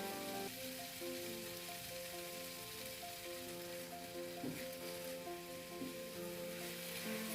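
Food frying in hot oil in a pan, giving a steady sizzle, over soft background music with held notes.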